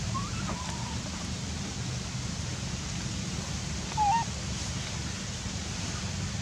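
Two short calls that bend in pitch, a faint one near the start and a louder one about four seconds in, from a bird or an animal, over a steady low outdoor rumble.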